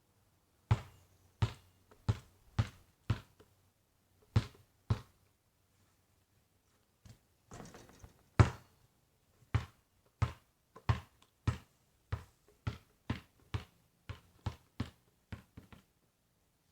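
Basketball being dribbled, bouncing in runs of sharp bounces about two a second with pauses between. There is a short scuffing noise and then one loud bounce near the middle, and the bounces come quicker near the end.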